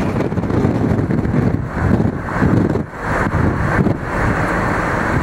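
Car driving along a road, heard from inside: steady engine and tyre noise with wind rumbling on the microphone, dipping briefly about three seconds in.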